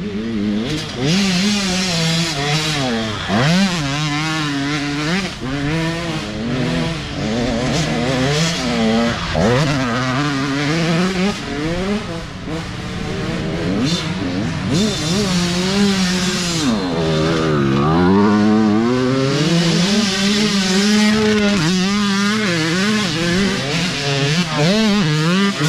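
Dirt bike engines revving and shifting, their pitch rising and falling over and over, with one bike coming close near the end.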